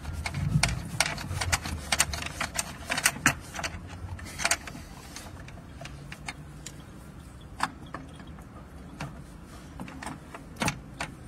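Sharp clicks and knocks of hard plastic and metal as a pump pressure controller is handled and fitted onto a water pump's threaded outlet. There is a quick run of clicks in the first five seconds, then scattered single knocks.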